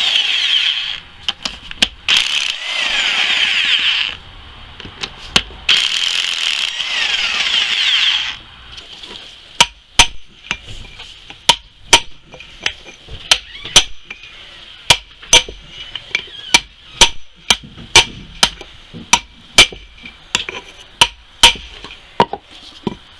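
Impact wrench running in three bursts, spinning out the retaining bolts of the rear wheel bearing on a 2005 Honda Element's rear knuckle. From about nine seconds in, a steady run of sharp, ringing metal-on-metal hammer blows, about two a second, knocking the old bearing out of the knuckle.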